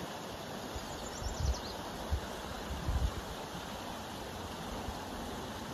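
Steady rushing outdoor ambience with a few low rumbles of wind on the microphone, and a bird giving a short run of quick high notes about a second in.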